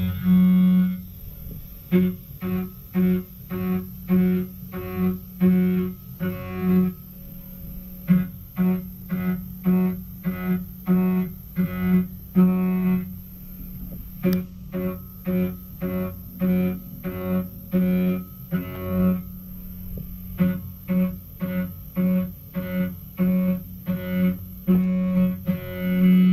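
Background music: low, short repeated notes about twice a second, in phrases broken by brief pauses.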